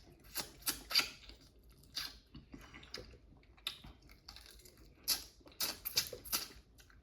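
Close-miked chewing and mouth smacking: a string of short, irregular, crisp clicks, bunched about a second in and again from about five to six and a half seconds in.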